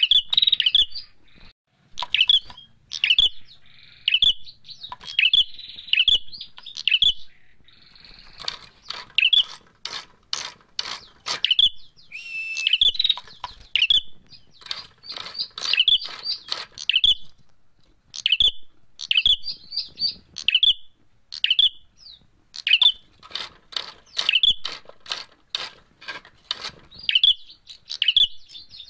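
Ashy tailorbird (prenjak merah) calling: repeated sharp chirps in quick bursts, mixed with runs of dry clicking notes, with a couple of short pauses.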